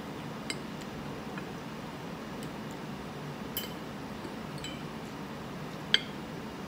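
Metal fork and knife clinking and scraping against a dinner plate while cutting food: a scatter of light clinks at uneven intervals, the loudest near the end, over a steady low room hum.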